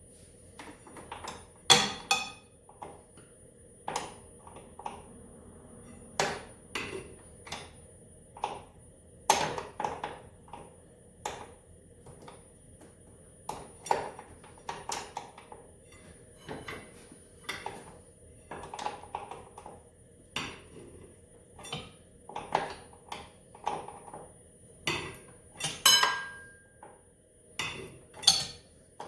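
Hand wrenches and sockets clinking and clanking irregularly against metal snowmobile engine parts during a teardown, with one brief ringing clank near the end.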